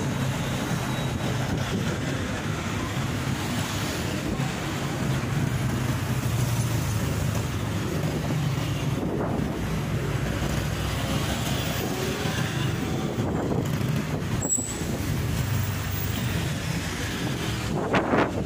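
Steady road traffic noise from cars, vans and motorcycles, with a low engine hum running under it. A brief louder sound comes near the end.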